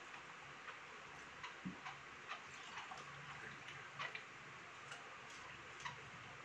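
Faint, scattered clicks and taps of a meal eaten by hand: shellfish shells and dishes handled at the table.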